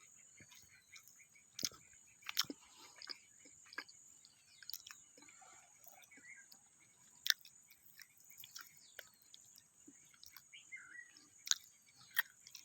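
Outdoor nature ambience: a steady high insect buzz with birds chirping, broken by about a dozen sharp clicks and knocks at irregular intervals, the loudest about seven seconds in.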